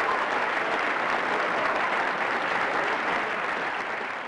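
Applause from a crowd, dense and steady, fading out near the end.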